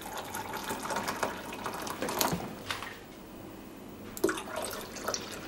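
Water poured from an electric kettle into a glass measuring jug onto jelly crystals, a splashing pour that is loudest for the first three seconds and then eases off. A few sharp clicks and knocks follow near the end.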